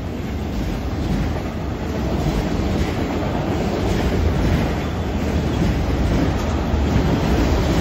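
Freight train's autorack cars rolling past: steel wheels on the rails making a loud, steady rolling noise with faint repeated clicks.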